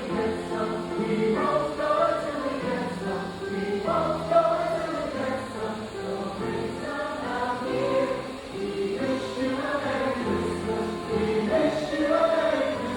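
Music with a choir singing, held notes moving from chord to chord.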